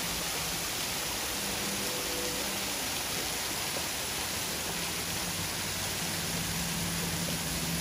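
Thin waterfall spraying down a rock overhang and splashing onto the rocks below: a steady, even hiss of falling water.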